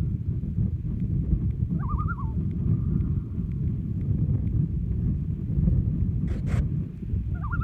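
Common loon giving two short quavering calls, one about two seconds in and one at the very end, over a steady low rumble. A brief sharp noise comes twice a little after six seconds.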